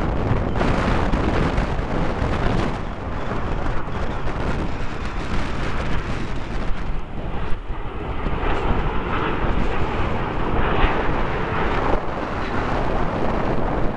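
Red Arrows BAE Hawk jets flying past in formation, a continuous jet rush, mixed with strong wind buffeting the microphone.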